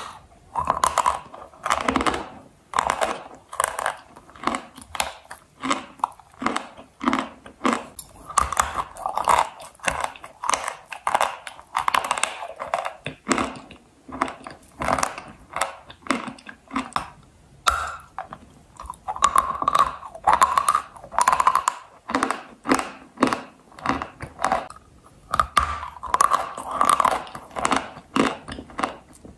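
Dry, brittle white clay being bitten and chewed close to the microphone: a steady run of crisp crunches, about one to two a second, with a couple of brief pauses.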